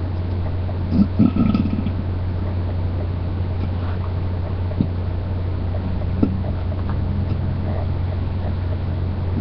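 A person doing a closed-mouth burp about a second in, one short low belch lasting under a second. A steady low hum runs underneath.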